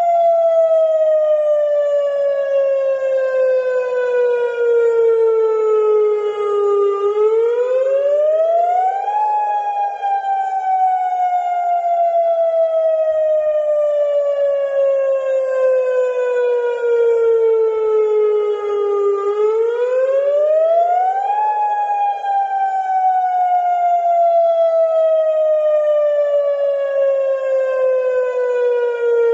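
Civil defence warning siren wailing: a quick rise in pitch over about two seconds, then a slow fall over about ten, heard twice. It is sounding the start of a curfew.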